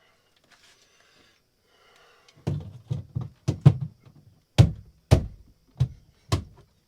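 About nine sharp, irregularly spaced knocks, the loudest a little past the middle, from the boat's inspection port being tapped to seat it round in its cut-out, because it is out of round.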